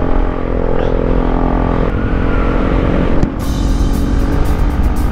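Motorcycle engine running steadily at cruising speed. From about three seconds in, wind buffets the microphone in quick gusts.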